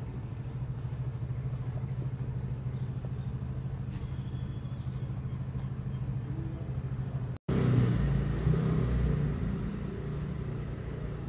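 A motor vehicle's engine running nearby with a steady low hum. About seven seconds in the sound cuts off abruptly and gives way to a louder low street rumble.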